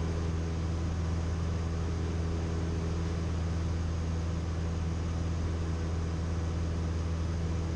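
Cessna 172M's four-cylinder Lycoming O-320 engine and propeller running steadily, heard inside the cabin as an even, low drone.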